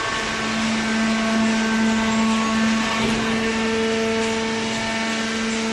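Hydraulic waste-paper baler running: a steady mechanical hum and whine from its pump motor over a broad rushing noise, the tone shifting slightly about halfway through.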